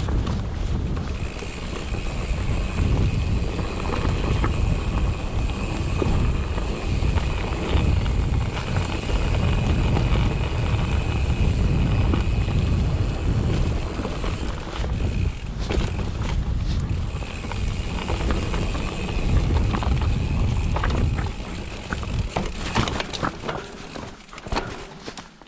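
Mountain bike descending a rocky trail: wind buffeting the microphone over the rumble of tyres and a rattling bike. The sharp clatters come thicker in the last few seconds as the overall noise drops.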